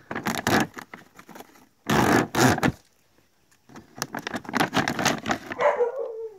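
Stiff plastic cat-food bag crinkling and rustling in loud bursts as it is handled and pulled open at its resealable top. Near the end a short falling animal cry.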